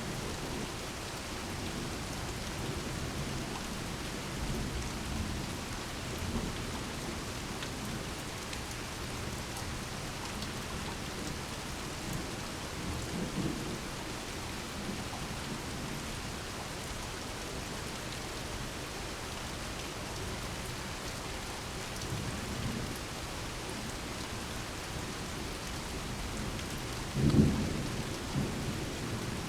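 Steady rain falling through a thunderstorm, with several low rumbles of thunder and one sharp, loud thunderclap near the end.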